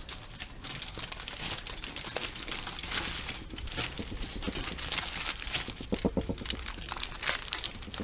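Aluminium foil being crinkled and folded by hand around a fish to close it into a baking packet: a continuous crackling rustle that keeps going as the foil is pressed and creased.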